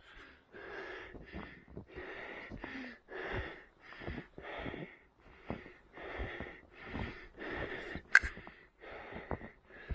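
A runner breathing hard and rhythmically, about two short, wheezy breaths a second. A single sharp click comes about eight seconds in.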